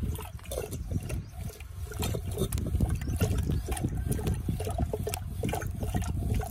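A wooden churning stick twirled back and forth in a clay pot of curd and water, sloshing and splashing in quick, irregular strokes as the curd is churned into buttermilk.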